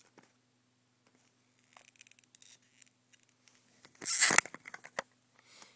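Plastic packaging of a Magic Mouse being opened by hand: light rustling and scraping, then a loud, sharp crackle about four seconds in, followed by a few clicks.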